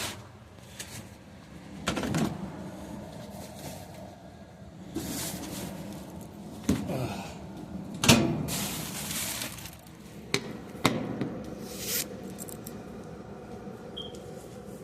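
Scattered knocks, bumps and rustling from someone moving things about in a small room, with one louder bang about eight seconds in.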